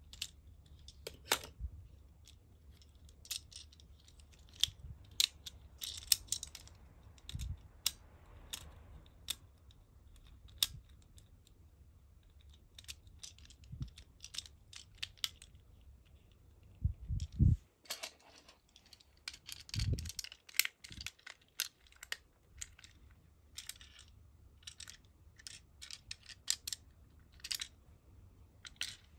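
Irregular small plastic clicks and snaps from a Transformers ambulance toy's joints and panels being folded by hand, as it is changed from robot into vehicle; a few duller knocks come about two-thirds of the way in.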